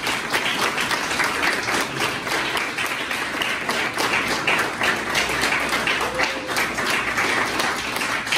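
Audience applauding, many hands clapping in a steady patter that fades away just after the end.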